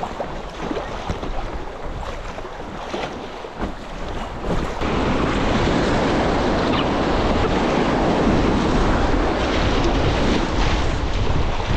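Fast river rapids rushing and splashing around an inflatable packraft, with paddle blades slapping into the water. The rush grows louder and steadier about five seconds in, as the raft runs through rougher white water.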